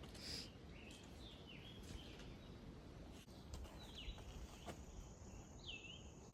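Faint birdsong: a songbird giving several short, downward-sweeping chirps, with a longer swooping note near the end, over a low steady rumble.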